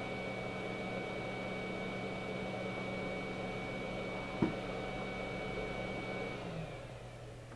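A small electric blower motor running steadily with a high whine over a low hum, then spinning down and stopping about six and a half seconds in. A single sharp click comes about four and a half seconds in.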